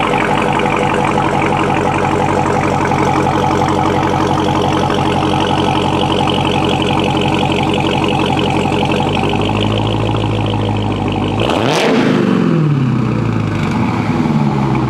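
Dodge Charger SRT Hellcat Redeye's supercharged 6.2-litre Hemi V8 idling steadily through its exhaust, then revved sharply about three-quarters of the way in, the pitch falling away as the revs drop, with a second rev falling away near the end.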